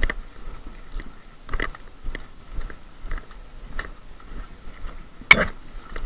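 Footsteps through dry leaf litter on a woodland floor, about two steps a second. One sharp crack stands out near the end.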